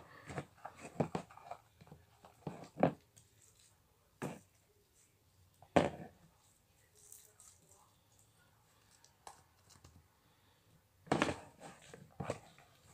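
Fluffy slime being scraped and pulled out of its container: sparse clicks, knocks and short sticky scrapes, with quiet gaps between them.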